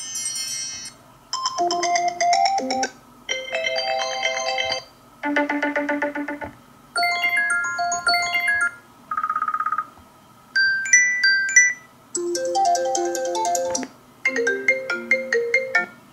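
Apple iPhone 13 Pro Max ringtones previewed one after another: about eight short melodic snippets of a second or so each, separated by brief pauses. One snippet near the middle is a single rapidly pulsing tone.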